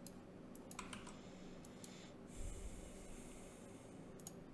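A few scattered, faint clicks from a computer mouse and keyboard. About halfway through comes a breath near the microphone, a soft hiss lasting a second or so.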